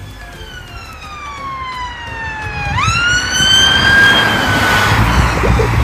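Police siren wailing: its pitch falls slowly for about three seconds, then sweeps quickly back up and holds high. A low vehicle rumble grows louder beneath it toward the end.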